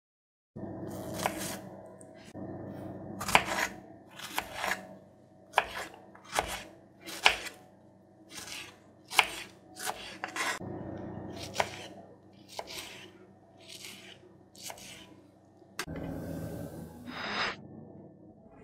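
Paring knife slicing strawberries on a bamboo cutting board: a series of sharp cuts striking the board, roughly once a second. A longer rustling noise comes near the end.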